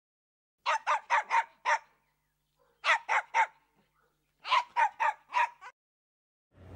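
A dog barking in three quick runs: about five barks, then three, then five, with a pause of about a second between runs and no other sound behind them.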